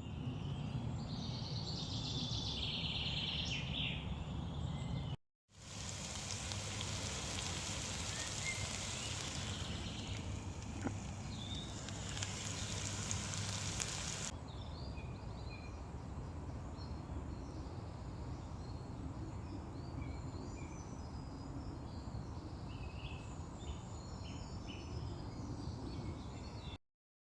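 Woodland ambience in three short cuts. First birds chirping over a low rumble, then about nine seconds of steady hissing from bacon sizzling in a pan over a small wood fire, then birds chirping again.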